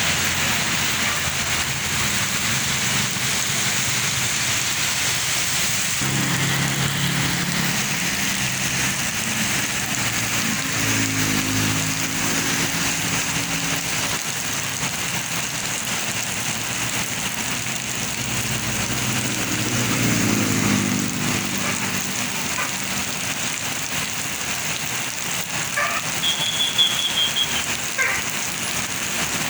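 Road traffic: a large vehicle's engine drone builds and passes over a steady hiss. A short, high-pitched steady tone sounds near the end.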